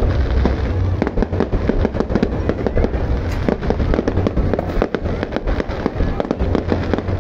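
Fireworks display going off continuously: dense rapid bangs and crackling over a deep rolling rumble.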